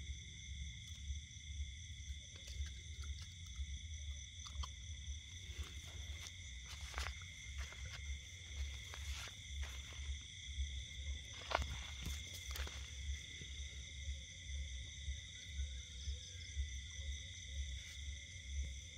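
Dog gnawing a bone, a scattering of sharp cracks and clicks through the middle, over a steady chorus of night insects holding several high tones and a low pulsing hum.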